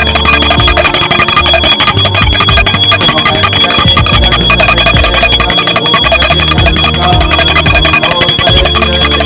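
Rapid, continuous ringing of a bell, with its high ringing tones held steady and a fast clatter of strikes.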